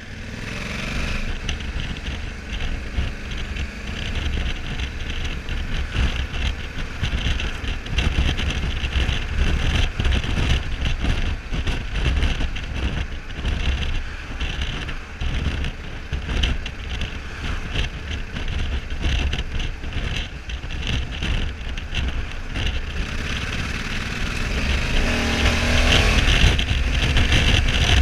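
Honda Africa Twin 1100's parallel-twin engine running at road speed, with wind buffeting the onboard microphone. Near the end the engine revs up and rises in pitch as the bike accelerates hard.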